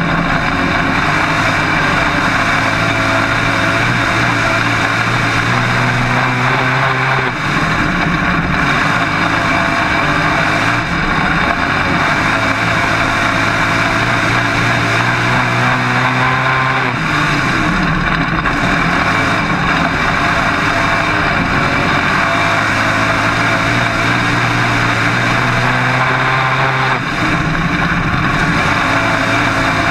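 Dirt-track modified race car engine heard from inside the cockpit at racing speed, loud and constant. The engine note holds high, then falls off and builds again three times, about every ten seconds, as the throttle is lifted for the turns and opened again down the straights.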